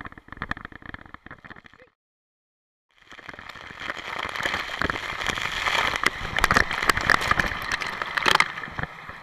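Rushing water and spray hitting a body-mounted action camera during a fast ride down a steep water slide. The sound cuts out completely for about a second near two seconds in, then the rushing grows loud and busy with crackling spatter, peaking with a splash about eight seconds in before dying down.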